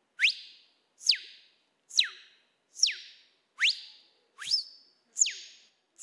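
Human mouth-whistled imitation of the tira-fogo (tico-tico-rei) song: a row of seven short, sharp whistle notes a little under a second apart, each sweeping quickly through a wide span of pitch.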